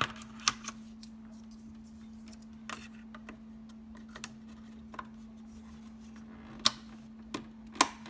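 Irregular sharp plastic clicks of RAM sticks and the DIMM slots' locking clips being pressed home and checked, the two loudest near the end, over a steady low hum.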